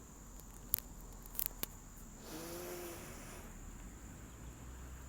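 Steady high-pitched insect drone, with a few sharp clicks in the first two seconds and a brief soft low tone in the middle.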